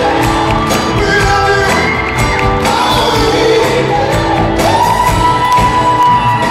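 Live band with a horn section and a singer performing, heard from among the audience in a large concert hall. A long note is held steady for the last couple of seconds.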